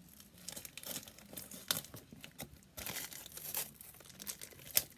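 Packaging crinkling and tearing as a parcel's contents are unwrapped by hand, in irregular quick crackles that get busier about three seconds in.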